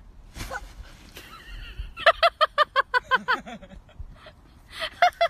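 Goose honking: a fast run of about ten nasal, pitched calls, roughly six a second, starting about two seconds in, followed by a few more calls near the end.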